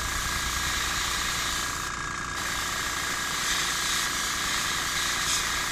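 Small hobby air compressor running steadily for an airbrush, with a constant hum and a hiss of air.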